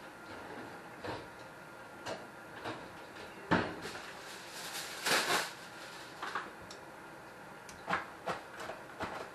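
Irregular knocks and clatter of kitchen work, with the loudest knocks about three and a half and five seconds in, over a low steady hiss.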